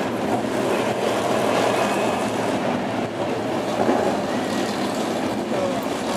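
Several BriSCA F1 stock cars' V8 engines running at low speed in a steady drone as the cars circulate slowly under a red flag.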